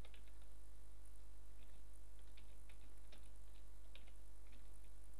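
Computer keyboard keystrokes: irregular, scattered clicks from typing, over a steady low electrical hum.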